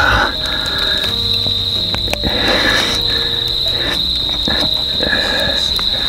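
A cricket trilling steadily on one high note, over teriyaki chicken sizzling in a black iron skillet, with soft background music.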